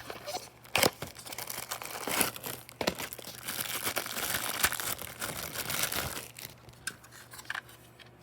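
Packaging crinkling and tearing as it is handled and opened, with a few sharp cracks along the way. It stops about six seconds in, leaving a couple of light clicks.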